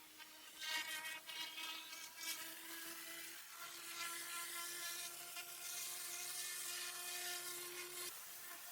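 Pressure washer running while blasting dirty paving: a steady motor hum that rises slightly in pitch under the hiss of the water jet, with crackly spatter in the first couple of seconds. The hum cuts out shortly before the end.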